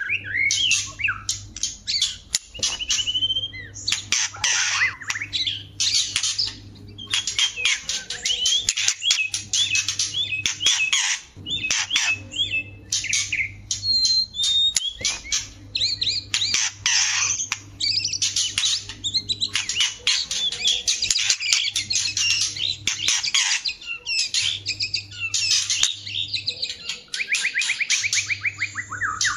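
White-rumped shamas, female and male, calling and singing: dense, fast strings of harsh chattering and clicking notes mixed with short whistled phrases, and a quick trill near the end.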